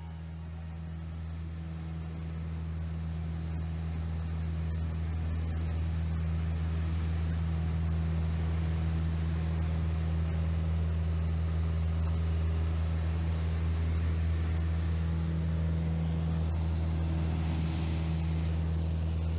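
Small propeller airplane's engine and propeller droning steadily in the cabin, with wind hiss over the airframe. The sound grows louder over the first several seconds, then holds steady.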